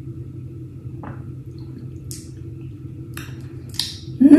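A person sipping and swallowing a drink from a glass, with a few faint short gulping noises over a steady low hum, then a short, loud vocal sound just before the end.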